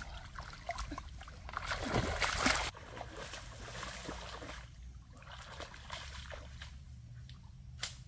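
Feet wading through shallow muddy water, sloshing and splashing, with a louder burst of splashing about two seconds in that cuts off suddenly.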